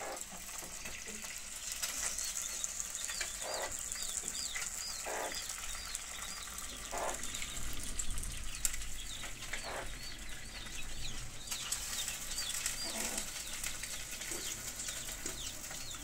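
Chickens: a steady run of high, arching peeping chirps, a few every second, with five short, lower clucking calls spread through.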